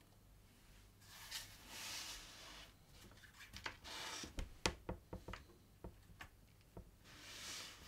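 Leather strap handled and turned over on a cutting mat: soft rustling and sliding of the leather, then a run of light clicks and taps from its metal ring fitting and zipper being handled, and a last soft rustle near the end.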